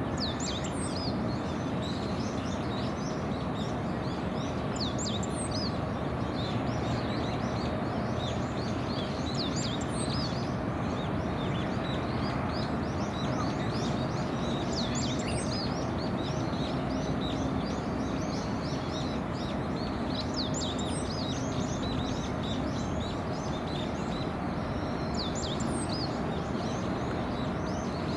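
Many small birds chirping and twittering, short high calls coming every second or so, over a steady background hum.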